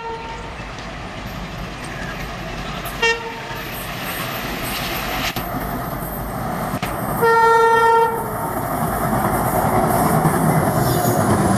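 Twin ALCO WDG-3A diesel locomotives approaching at the head of a freight train, engines running and wheels rolling, louder as they come close. The horn gives a brief toot at the start, another short toot about three seconds in, and a longer, louder blast of about a second around seven seconds in.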